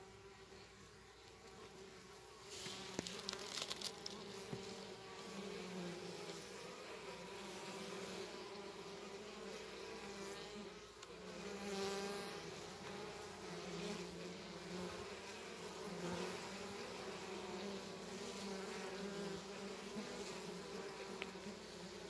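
Carpathian honeybees buzzing at a hive entrance: a steady hum of many wings that swells and fades as bees fly close past, louder from about two and a half seconds in.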